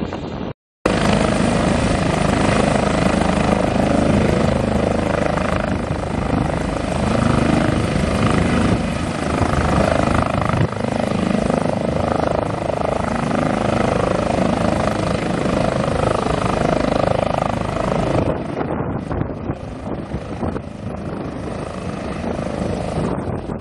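Airbus H145M military helicopter flying close by: steady rotor beat and turbine noise. The noise starts abruptly after a split-second silence just under a second in, stays loud, and eases somewhat near the end.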